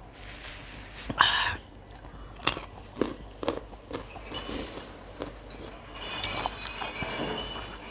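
Close-miked eating: a person chewing and crunching food, with wet smacks and sharp mouth clicks, and a louder crunching burst about a second in.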